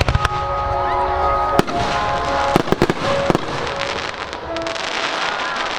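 Fireworks going off: sharp bangs near the start, one about a second and a half in, and a quick cluster of reports around three seconds in, with music playing underneath.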